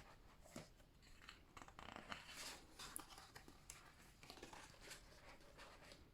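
Faint rustling and soft scraping of paper as a photobook's pages are handled and turned.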